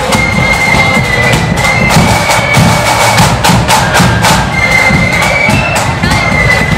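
Marching flute band playing a tune: shrill, high flute melody over a steady beat of snare and bass drums.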